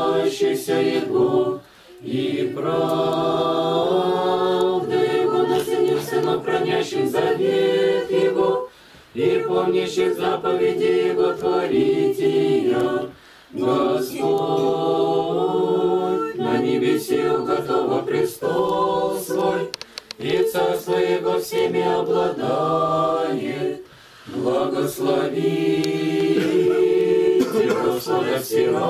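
A small unaccompanied choir sings an Orthodox liturgical chant in phrases a few seconds long, with brief pauses for breath between them.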